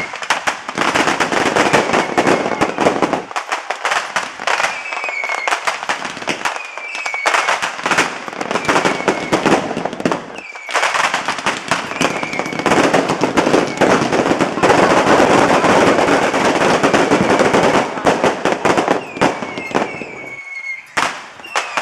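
Fireworks and firecrackers going off in a dense, continuous crackle of bangs, with short, high, falling whistles every second or two; the barrage thins out near the end.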